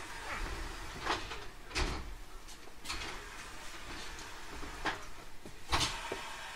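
Interior noise of a 521 series electric train car: a low steady rumble and hiss with scattered knocks and clunks, the loudest thumps about two seconds in and near the end.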